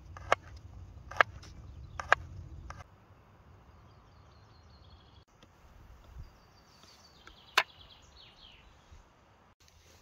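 Knife chopping on a small chopping board: three sharp chops about a second apart, then one more about eight seconds in. A low rumble sits under the first three seconds, and birds chirp faintly.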